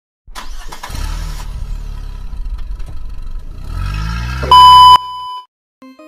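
Recorded car engine sound starting up and running, revving up near the four-second mark, then a loud, steady, high-pitched beep lasting about half a second.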